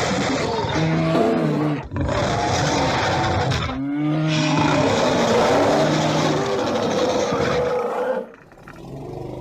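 Bear roar sound effect, several loud roars in a row with short breaks about two and four seconds in, dropping quieter near the end.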